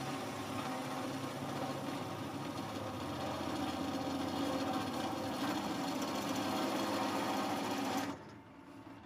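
Bench drill press running with a half-inch drill bit boring through metal, a steady mechanical grinding and whirring. The noise falls off sharply about eight seconds in.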